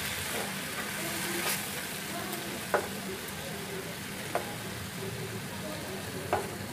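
Onions, tomatoes and cashews sizzling in a non-stick frying pan as they are stirred with a slotted plastic spatula, with three sharp taps of the spatula against the pan.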